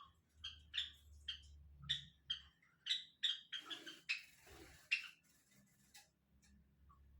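Small birds chirping: short, separate calls repeated about two or three times a second, thinning out after about five seconds. A short burst of noise breaks in about four seconds in.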